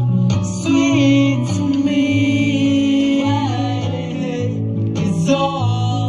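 A song performed live through a PA system: a male voice singing into a microphone over a guitar-led backing track with a steady low bass line.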